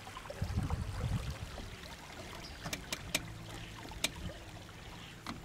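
Small-boat river ambience: water moving against the boat, with a low rumble about half a second in and a few sharp clicks or knocks near the middle.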